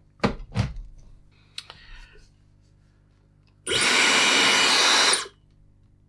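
A few knocks of handling in the first second, then about three and a half seconds in a Dyson hair dryer switches on and blows a loud rush of air with a faint high whine for about a second and a half before cutting off.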